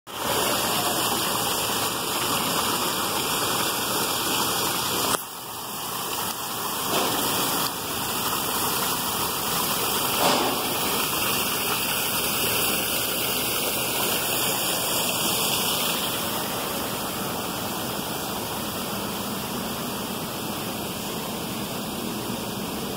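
Garden water feature: water pouring over a rock ledge into a pool, a steady rushing splash. It dips briefly about five seconds in and is a little quieter in the last several seconds.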